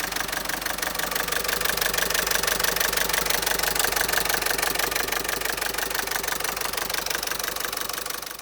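Opel Meriva's 1.4 litre Z14XEP four-cylinder petrol engine idling with a fast, even ticking clatter that makes it sound like a diesel.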